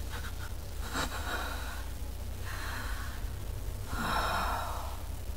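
A person breathing heavily, with several audible breaths and gasps, the loudest about four seconds in, over a steady low hum.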